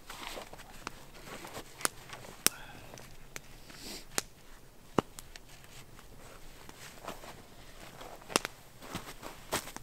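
Wood fire crackling: a soft hiss broken by scattered, irregular sharp pops and snaps.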